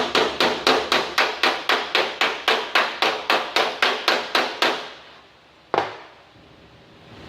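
Hand body hammer tapping the steel fender panel of a 1947 Chevrolet pickup in a quick, even run of about four light blows a second, working up a low spot in the sheet metal; the taps stop just before five seconds in, followed by one single blow about a second later.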